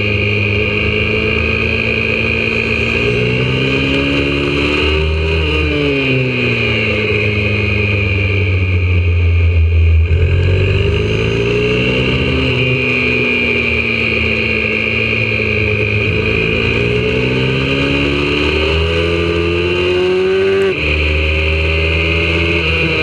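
YCF 125cc four-stroke single-cylinder pit bike engine heard from onboard at racing speed, its pitch climbing under acceleration and falling off into corners several times, with abrupt drops in pitch at gear changes about ten seconds in and near the end.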